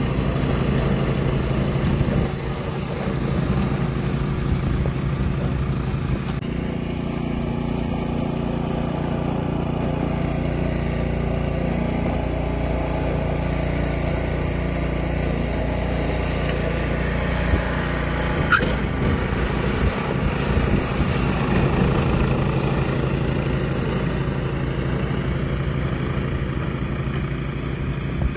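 Snowblower engine running steadily under load while the machine clears snow and throws it from the chute, with a couple of brief sharp clicks a little past the middle.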